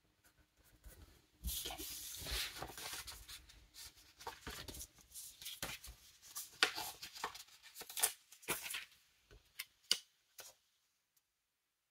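Paper and sticker sheets being handled: scratchy rustling and crinkling with small taps as stickers are peeled from their backing and pressed onto planner pages, stopping about ten seconds in.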